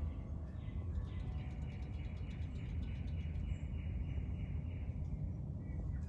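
A songbird singing a long run of quick, repeated down-slurred notes, about three a second, over a steady low rumble.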